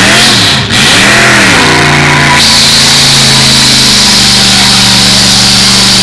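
Eight-cylinder demolition derby car engines revving up and down, then held at steady high revs. A loud rushing noise joins about two and a half seconds in.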